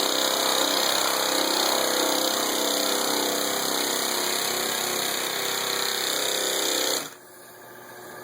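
Large air-powered body sander running steadily as it sands body filler, then stopping abruptly about seven seconds in; it draws more air than the compressor can supply.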